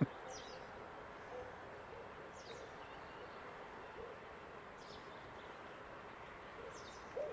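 A flock of swans calling in flight, faint hooting calls that grow louder near the end. A small bird gives a short, high, falling note about every two seconds.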